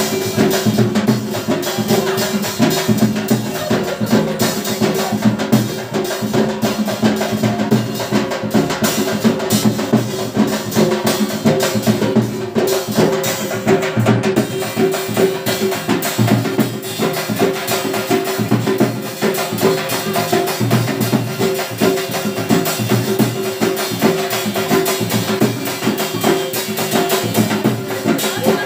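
Rajasthani folk dance music for ghoomar, with a steady driving drum beat.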